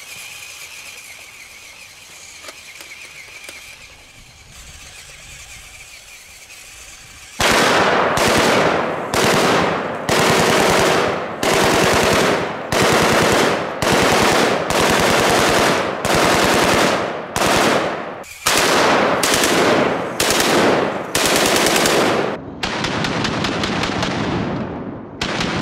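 Full-auto AK-47 firing 7.62×39 rounds in a rapid series of short bursts, about a dozen, starting some seven seconds in after a quieter stretch, with a longer unbroken run of fire near the end.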